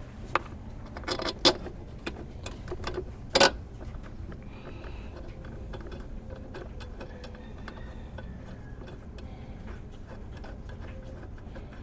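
Small metal clinks and knocks as the screws for the air filter box are handled and fitted. A few sharper knocks come in the first few seconds, the loudest at about three and a half seconds, followed by lighter scattered ticking.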